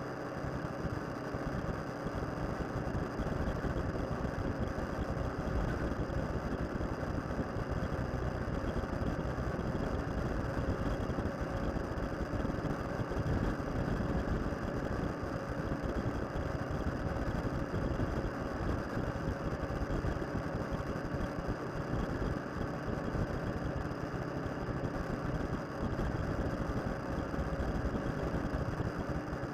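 Motorcycle being ridden on a gravel road: the engine runs at a steady pitch under a constant rushing noise.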